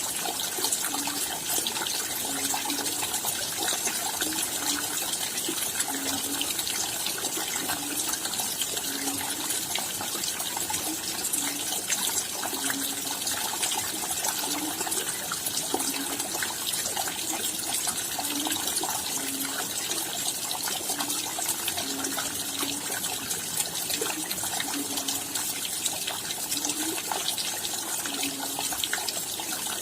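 Steady rain falling at night, a dense even hiss full of individual raindrop ticks. A short low note repeats about once a second underneath.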